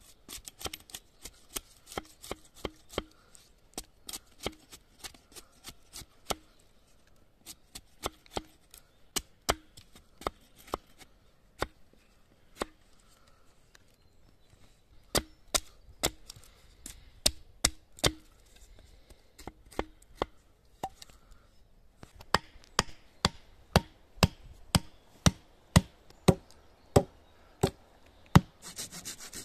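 Hatchet chopping wood: sharp, irregular blows, often in runs of about two a second, with a pause of a couple of seconds about halfway through.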